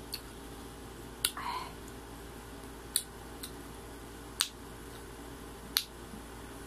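Crisp crunches of unripe green mango being bitten and chewed close to the microphone: four sharp snaps about a second and a half apart, with fainter clicks between.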